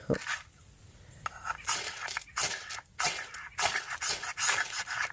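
Ferrocerium rod being struck with a scraper to throw sparks onto damp feather-stick shavings: a quick series of about seven short, harsh scrapes at roughly two a second, beginning just under two seconds in.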